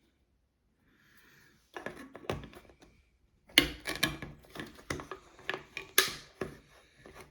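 Leatherman Arc multitool's can opener working around the rim of a soda can, a run of sharp metallic clicks and scrapes about twice a second that begins about two seconds in.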